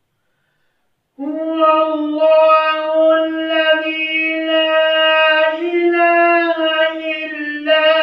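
A man reciting the Quran in the melodic chanted style (tilawat), holding long drawn-out notes that shift slowly in pitch. The voice comes in about a second in after silence, and a new phrase starts near the end.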